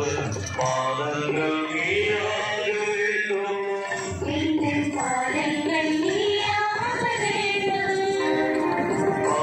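A devotional hymn sung with musical accompaniment, the voice carrying a slow, gliding melody.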